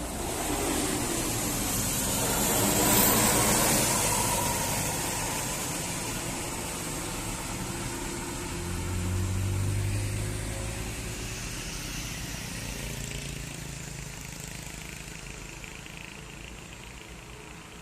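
Road vehicles passing on an uphill road: engine and road noise swells to a peak about three seconds in, swells again around ten seconds with a low engine drone, then slowly fades.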